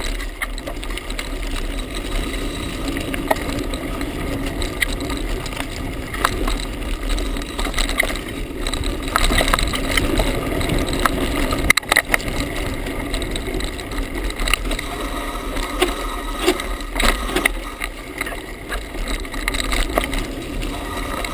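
Mountain bike riding fast down a dirt singletrack: a steady rush of tyres and air, with frequent rattles and knocks from the bike over bumps and a sharper clack about twelve seconds in.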